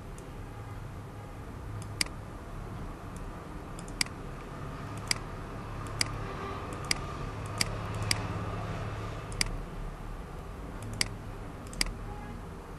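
Computer mouse button clicking, about ten sharp single clicks at irregular intervals, over a steady low hum.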